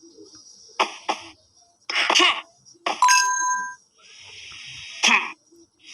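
A run of short, exaggerated human coughs, about five in all, spaced unevenly, with a brief ringing tone about three seconds in.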